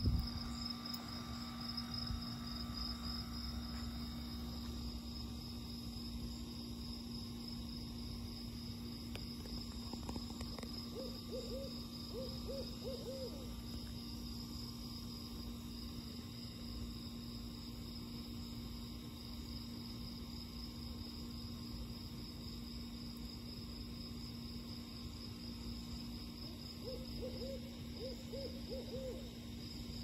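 An owl hooting: two runs of about five short hoots, the first about eleven seconds in and the second near the end, over steady insect chirping.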